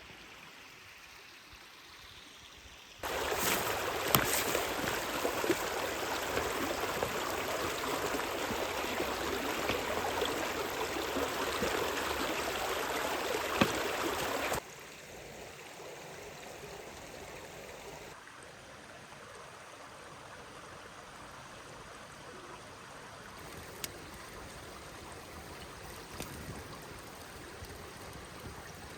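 Running water of a stream: a faint flow, then a loud close rush that cuts in about three seconds in and drops suddenly back to a fainter flow about halfway through, with a few sharp clicks.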